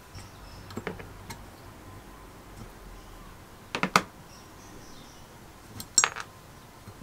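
Small metal clicks and taps as hand tools work on a brass burner valve held in pliers: a few light clicks early on, then two louder pairs of clicks about four and six seconds in.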